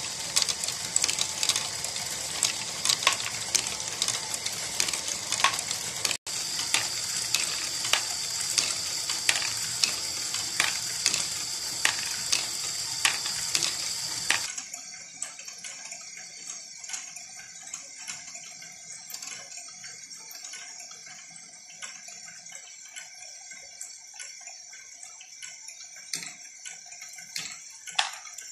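Lego Great Ball Contraption strain wave gearing module running: plastic gears and arms clattering steadily, with frequent sharp clicks of plastic balls being moved, over a steady high hiss. About halfway through it becomes quieter and more distant.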